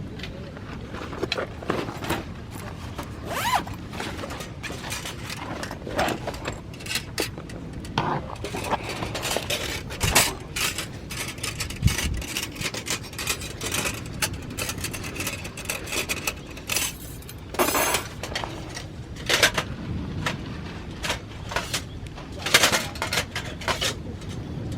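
Irregular clicks, knocks and scraping of gear being handled, with a few longer rustling scrapes.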